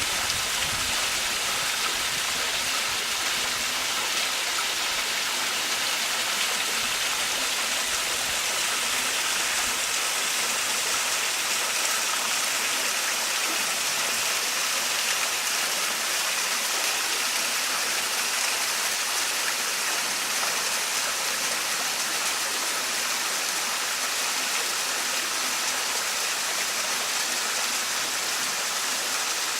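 Small waterfall splashing into a stream: a steady, unbroken rush of falling water, with most of its sound high and hissing.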